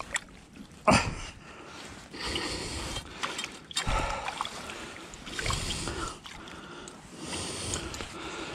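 Clothing rustling and handling knocks as a landing net holding a fish is worked at the water's edge, with small splashes as the net goes into the shallows. The loudest sound is a sharp knock about a second in, with another near four seconds.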